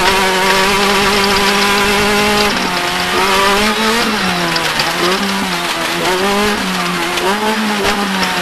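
Off-road race vehicle's engine running hard at high revs. It holds a steady pitch for about two and a half seconds, then rises and dips repeatedly as the throttle comes on and off.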